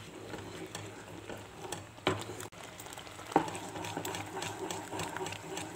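Thick tomato sauce simmering and popping in a pan while a wooden spatula stirs it, with two sharper knocks about two and three and a half seconds in.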